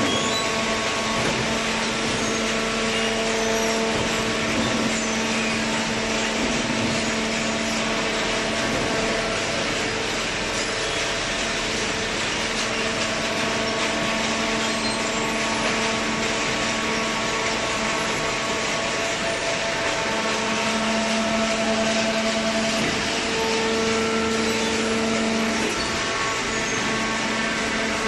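Hydraulic cardboard baler running: its electric motor and hydraulic pump give a steady hum and drone over a wash of machine noise, the drone swelling slightly now and then.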